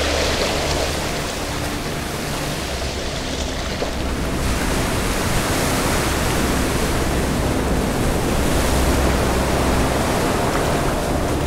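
A steady, loud rushing noise like surf, with low held music notes underneath.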